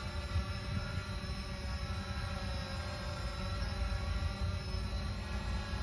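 Quadcopter drone's propellers running steadily in flight, a buzzing whine of several held tones, over a rough low rumble that rises and falls.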